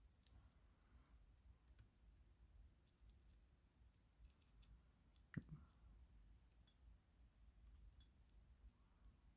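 Near silence with faint, scattered clicks and one soft thump about five and a half seconds in.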